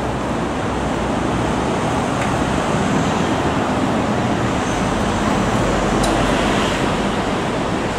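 Steady road traffic noise on a city street, with a city bus running at the kerb close by. A brief sharp click comes about six seconds in.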